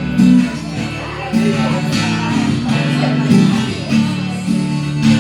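Live band playing an instrumental outro of plucked and strummed string instruments, with fresh chords struck about once a second.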